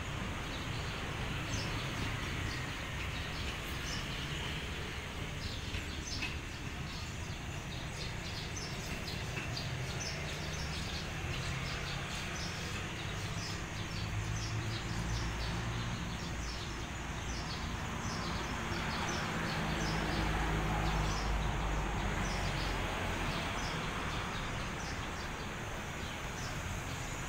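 Low, steady rumble of a diesel railway locomotive's engine, swelling briefly past the middle, with small birds chirping over it again and again.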